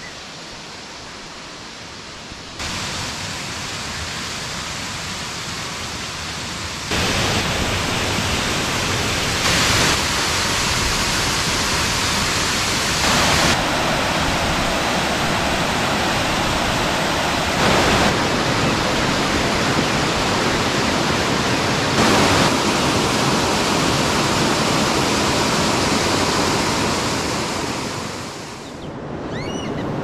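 Water pouring over a dam wall as a man-made waterfall, a steady rushing with no break. The level jumps in steps between shots, grows much louder about seven seconds in, and fades away near the end.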